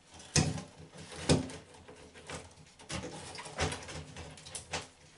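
An LED downlight with its spring clips folded up being pushed into a hole in a plasterboard ceiling: scraping and a few sharp clicks and knocks, the loudest about half a second and a second and a half in.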